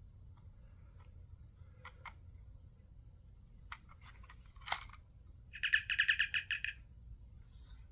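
A few sharp clicks, the loudest just before five seconds in, then the Star Trek original-series communicator chirp played from the replica's built-in speaker: a fast warbling trill of about ten pulses lasting just over a second. The chirp is set off by the prop's magnetic switch.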